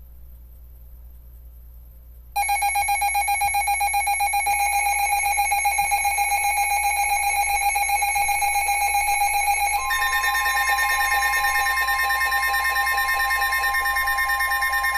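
Weather alert radios sounding an alert alarm: a loud, rapidly pulsing electronic beep starts suddenly about two seconds in, and a second, steady and slightly higher tone joins about ten seconds in. It marks an incoming weather warning broadcast.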